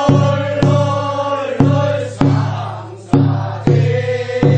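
Korean rice-paddy weeding work song (nonmaeneun sori): a group of voices chanting in unison over percussion, with sharp strikes falling in pairs about every second and a half.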